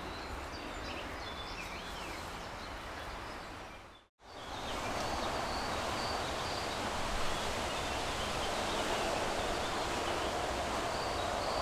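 Steady outdoor background noise, a rustling hiss like leaves in the wind, with a few faint high chirps. It drops out briefly about four seconds in and comes back louder.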